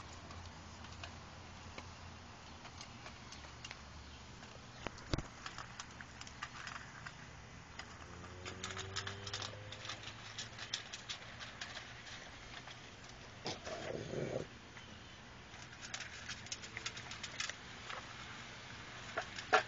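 Rottweiler eating dry dog food from a pan: scattered crisp crunches and clicks that come in clusters, with a single knock about five seconds in.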